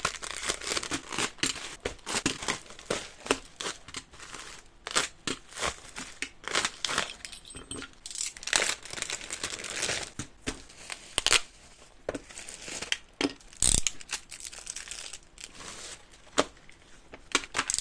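Mail packaging torn open and crinkled by hand: a padded envelope and plastic mailer bags, in irregular rustling and tearing bursts. There is a single knock about three-quarters of the way through.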